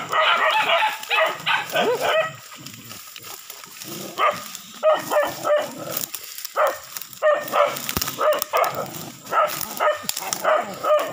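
Dogs barking and yelping at a cornered monitor lizard: a rapid run of yaps for about the first two seconds, then single barks every second or so after a brief lull.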